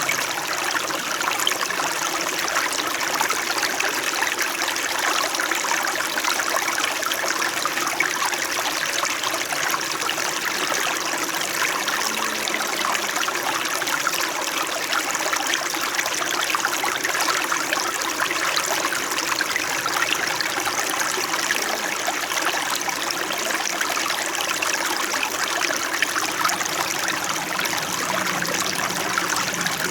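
Small mountain stream in winter flowing and babbling steadily over stones, an even rushing with fine trickling.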